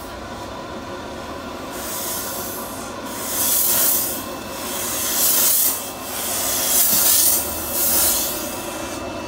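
Steam-cleaning wand blasting steam into car seat upholstery in about five hissing bursts, each about a second long, over a steady background drone.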